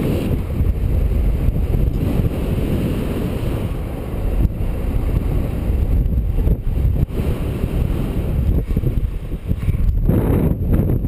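Strong wind buffeting the microphone in paraglider flight: a loud, low rumble that swells and dips with the gusts.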